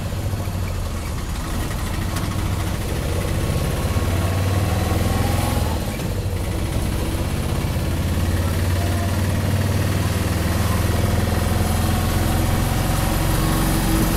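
Auto-rickshaw engine running steadily with road noise, heard from inside the open passenger compartment while riding, with a short dip in level about six seconds in.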